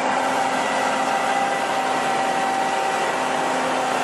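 Tracked swamp vehicle driving across marsh: steady engine and track noise with a constant whine.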